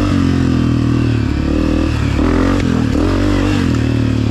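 Honda CRF250F dirt bike's four-stroke single-cylinder engine, fitted with a Pro Circuit exhaust, running loud with its pitch rising and falling as the throttle is worked.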